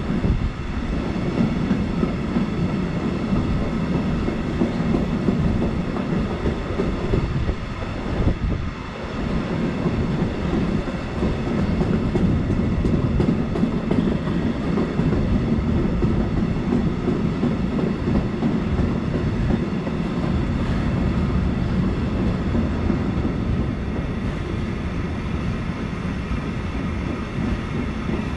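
A freight train of empty flat wagons rolling steadily past on the near track, with a brief lull about eight seconds in.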